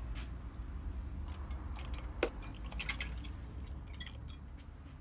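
Scattered light metallic clicks and clinks of small tools being handled: pliers and a thin hardened silver steel rod, with one sharper click about two seconds in.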